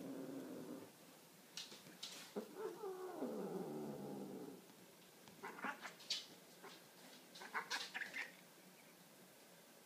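A cat's long, wavering yowl, falling in pitch, twice: one dying away within the first second, a second of about two seconds starting about two and a half seconds in. Then a few soft clicks and rustles as the animals move against each other on the rug.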